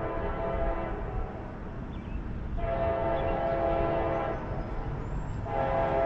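Air horn of an approaching CSX freight train's lead locomotive, a chord of steady tones sounding in separate blasts, as at a grade crossing. One blast ends about a second in, a second runs from just before the middle to about three-quarters through, and a third starts near the end, over a low rumble.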